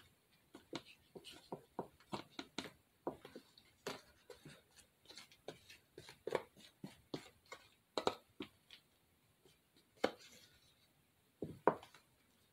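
A utensil scraping and clicking against a clear plastic cup as pink colour is stirred into spackle: quick, irregular taps and scrapes that thin out after about nine seconds, with two louder knocks near the end.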